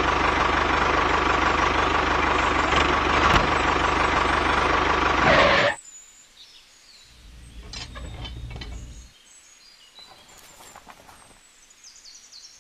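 Small motor and gearing of a toy-scale DIY model tractor running with a steady whine and hum, cutting off suddenly about six seconds in. After that, fainter short spells of motor hum and a few small clicks.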